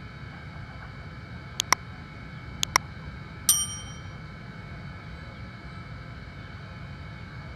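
Subscribe-button sound effect: two quick double mouse clicks about a second apart, then a bright bell-notification ding that rings out for about half a second. A steady background hiss lies under it.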